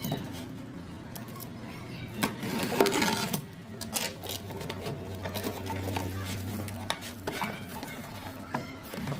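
Small plastic toy pieces and packaging being handled: scattered clicks and taps, with a burst of rustling about three seconds in, over a steady low hum.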